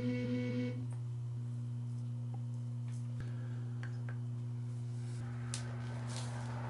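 A steady low hum of held tones, with a few faint clicks of PVC drain fittings being handled.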